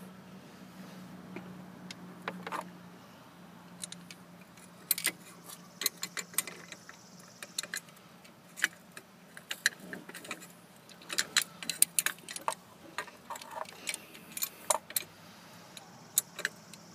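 Metal clicks and clinks from an accelerator pedal assembly's bracket and sensor being handled and fitted by hand. The clicks are irregular and sharp; they start about two seconds in and come thick and fast from about five seconds on.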